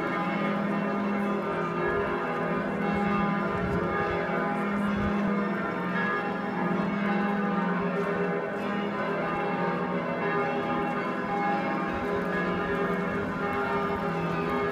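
Church bells of Munich's Marienkirche ringing a full peal: several loud bells swinging and striking over one another, each note ringing on, with a deep bell sounding about every two seconds beneath the higher ones.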